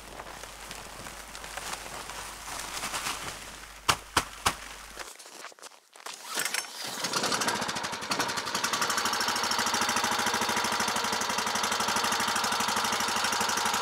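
The small engine of a Tofalar 500 motorized snow tow catches about seven seconds in and settles into a steady, fast-pulsing idle as it warms up. A few sharp knocks come a few seconds before it starts.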